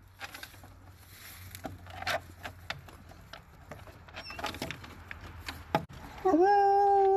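A bloodhound howling: one long, loud note that rises briefly and then holds a steady pitch, starting about six seconds in. Before it there are only faint clicks and rustles.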